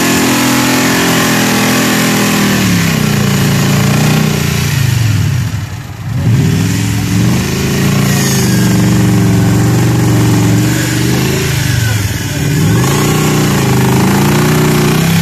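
Off-road race buggy's engine revving hard in repeated surges under load as it climbs a steep slope. The revs rise and fall, dropping off briefly about six seconds in and again near twelve seconds before picking up again.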